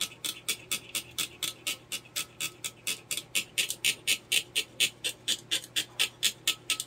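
Small hand brush scrubbed rapidly back and forth over the circuit board of a Nissan Juke electric power steering module, a rhythmic scratchy brushing of about five strokes a second that grows louder after about three seconds.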